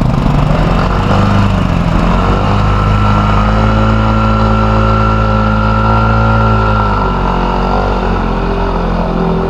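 Motorcycle engine running: its pitch rises about two seconds in, holds steady, then drops back about seven seconds in.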